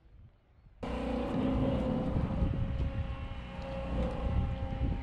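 A boat's inboard engine running steadily as the sailboat motors out of the harbour. The sound cuts in abruptly about a second in: a deep rumble with a steady hum over it.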